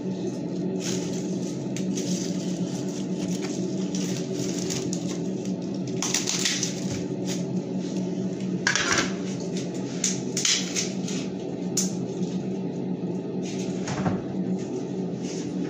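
Steady hum of a kitchen appliance, with light clicks and clatter of kitchen things now and then.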